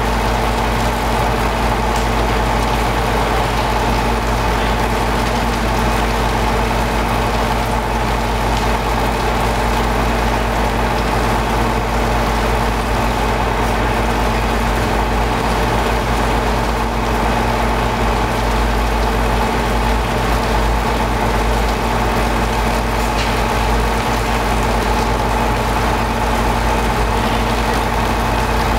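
Heavy engine idling: a constant, unchanging drone with steady humming tones.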